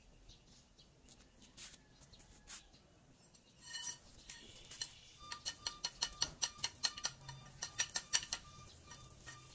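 Hand tools clinking on steel truck parts: a few scattered taps, then from about halfway a quick run of sharp metallic clicks, several a second, with a faint ringing.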